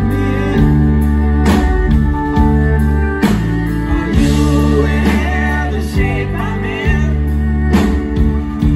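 Live folk-rock band playing a slow song on piano, electric guitar, bass and drums under a male lead vocal, with strong drum hits on the accents.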